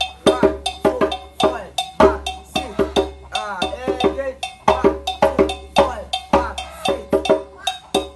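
Hand drums played live in a quick, busy rhythm of sharp, ringing strikes.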